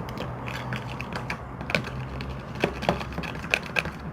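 Irregular light clicks and taps of objects being handled, with a few sharper ones in the second half, over a faint steady low hum.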